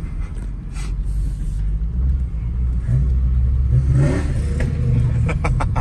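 Holden VN Commodore's 5.0-litre V8 running under acceleration as the car pulls away, a steady deep engine note with its pitch shifting in the middle, and a few sharp clicks near the end.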